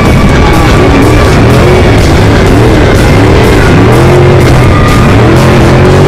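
Loud rock music with electric guitar and a regular drum beat.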